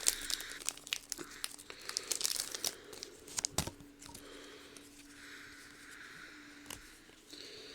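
Foil trading-card booster pack wrappers crinkling and tearing open, busiest in the first three or four seconds and then dying down to faint rustling.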